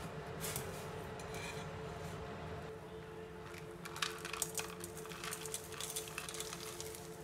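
Water boiling in a stainless steel pot, with a steel ladle in it. From about four seconds in, lumps of rock sugar are tipped in, giving a run of sharp clinks and clicks against the ladle and pot over the boiling.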